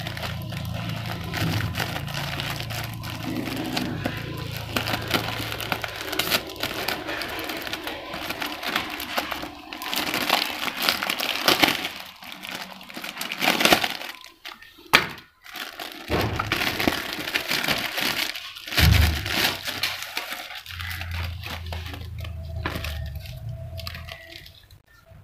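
Clear plastic packaging of an art brush set being cut and pulled open, crinkling and crackling, with two short pauses a little past halfway.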